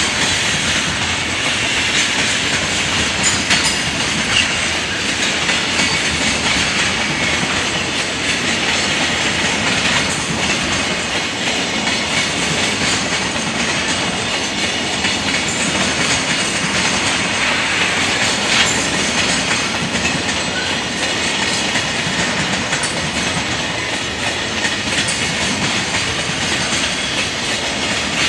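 Freight train wagons rolling past in a steady, loud rush of wheel and rail noise, with wheels clacking over rail joints now and then.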